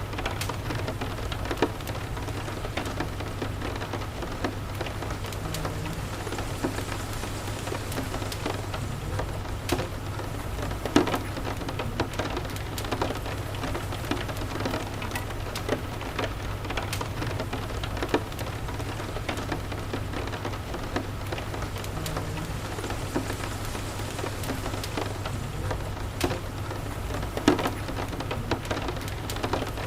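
Steady rain falling, with a crackling wood fireplace: scattered sharp pops and ticks, a few louder ones standing out.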